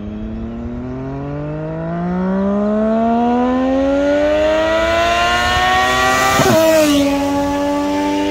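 Triumph Daytona 675R inline-three sport bike with an Arrow exhaust accelerating hard past: the engine note climbs steadily as it approaches, drops sharply as it passes about six and a half seconds in, then holds a steady lower note as it pulls away.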